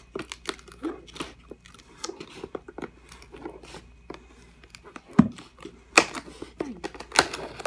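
Kitchen knife slicing through packing tape and cardboard along the seam of a box: a run of scratchy cuts and scrapes, with several louder sharp cracks in the second half.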